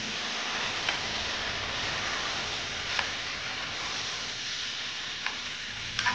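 A metal spoon stirring chicken pieces, onion and spices in an aluminium pressure cooker pan, with four sharp clinks of the spoon against the pan over a steady hiss.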